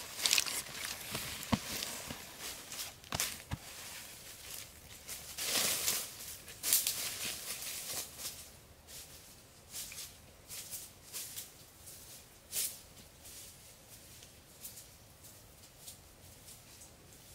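Footsteps and rustling in dry leaf litter on a forest floor, loudest in the first few seconds and fading as the walker moves away.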